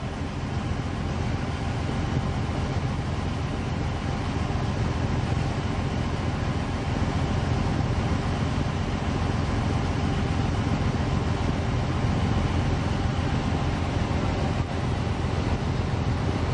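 River cruise boat's engine running at a steady low drone, heard on board, with a faint steady tone above it.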